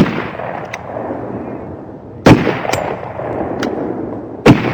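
Three rifle shots about two seconds apart, each sharp crack followed by a long echoing tail, with fainter clicks between the shots.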